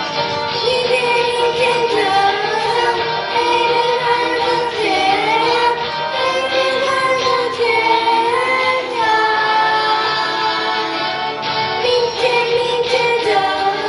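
A group of young children singing a song together into microphones, with musical accompaniment.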